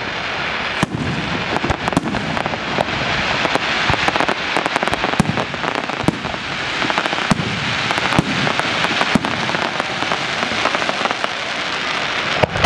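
Fireworks display: aerial shells bursting overhead, a steady dense crackling with many sharp bangs and pops throughout.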